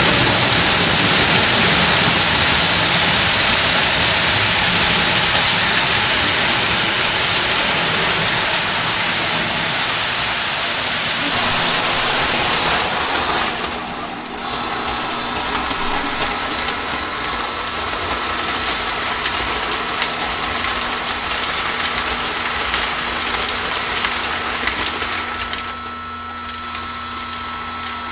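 O-gauge toy trains running on three-rail metal track: a steady rushing roll of wheels on the rails with electric motor hum. The sound dips briefly about halfway, after which a steady hum tone comes in.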